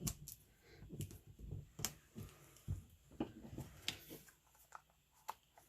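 Paper and small craft pieces being handled and pressed down on a work table: scattered light taps and clicks with soft rustling.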